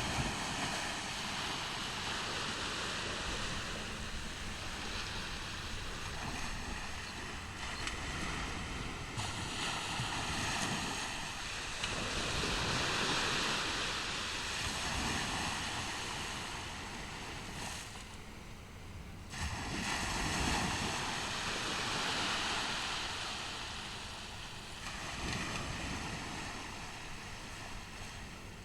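Ocean surf breaking and washing up the beach, a steady rushing that swells and ebbs in long surges as each wave comes in, with fresh surges rising about twelve and about twenty seconds in.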